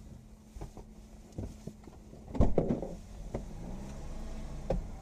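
Car engine idling, heard from inside the cabin, with scattered light clicks and a louder knock about two and a half seconds in.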